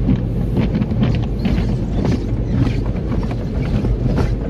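Automatic car wash heard from inside the car: a steady low rumble of machinery and spraying water, with irregular thuds and slaps as the brushes beat on the car's body and roof. It is extra loud.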